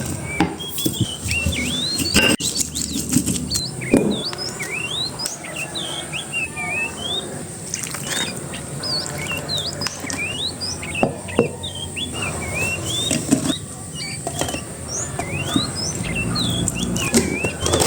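Birds chirping busily: many short rising and falling whistled chirps in quick succession. Now and then a sharp knock or clatter cuts in.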